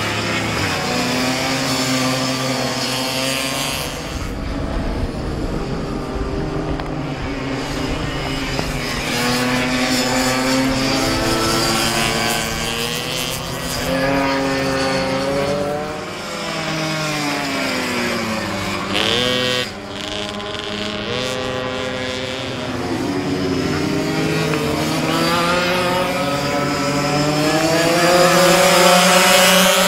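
Several two-stroke minimoto (pocket bike) racing engines, their pitch falling and climbing over and over as the bikes brake for corners and accelerate out. They are loudest near the end as the bikes pass close.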